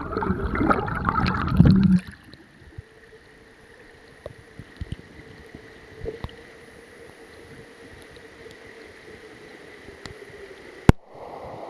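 River riffle: shallow water gurgling and splashing over stones, loud for about two seconds, then cutting suddenly to a quieter, even rush of flowing water. A sharp click near the end.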